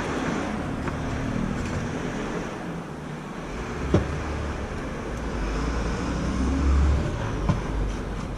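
A steady background rumble and hiss, like passing road traffic. The low rumble swells through the second half and peaks near the end. A sharp click comes about four seconds in, and a smaller one shortly before the end.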